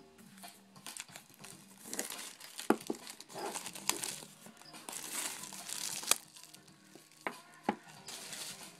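Plastic wrapping on a box of trading cards crinkling and tearing as it is opened, with several sharp snaps.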